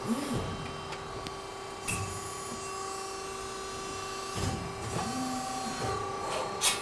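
CNC hydraulic press brake running its bend cycle on an 11-gauge stainless steel channel: the hydraulic pump hums steadily, and rising-and-falling whines come as the ram and servo back gauge move, near the start and again several times in the second half. A few light metallic clicks, the sharpest near the end.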